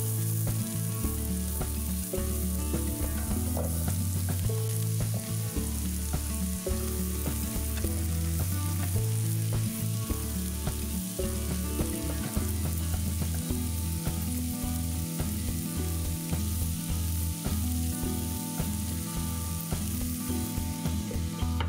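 Diced onion, then cubed zucchini, sizzling steadily in hot oil in a nonstick frying pan while being stirred with a silicone spatula. Quiet background music runs underneath.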